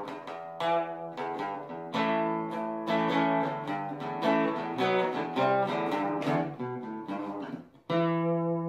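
Instrumental guitar music: quick plucked notes, then a brief pause and a final chord struck near the end and left ringing.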